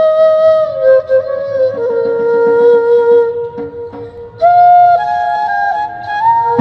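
Music: a flute-like wind instrument plays a slow melody of long held notes, dipping briefly about four seconds in before moving to a higher note.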